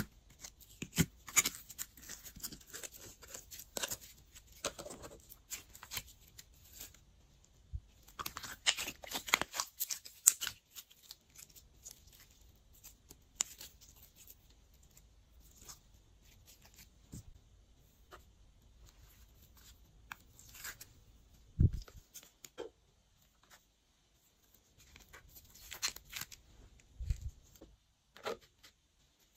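Glossy slime being stretched and squished by hand, giving irregular sticky crackles and pops that are busiest in the first ten seconds and sparse through the middle. Two soft low thuds come later.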